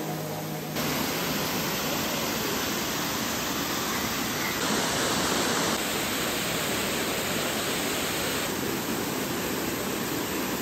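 Waterfall cascading down steep rock: a steady, even rush of water whose level shifts slightly a few times.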